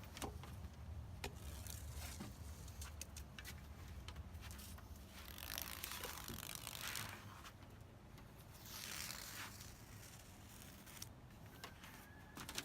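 Rubber spline being pulled out of the groove of a screen door frame: faint scraping, tearing pulls with scattered clicks, the longest pulls about five and nine seconds in.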